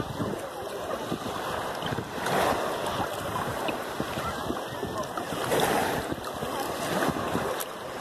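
Shallow sea water washing and lapping, with wind buffeting the microphone; the wash swells about two seconds in and again just past the middle.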